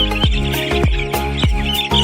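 Background music with a steady beat of deep, falling-pitch drum hits. Behind it, a dense chorus of young broiler chicks peeping.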